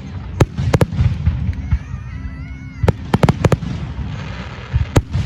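Fireworks display: sharp bangs from exploding aerial shells, a quick cluster of several about three seconds in, over a continuous low rumble of the show.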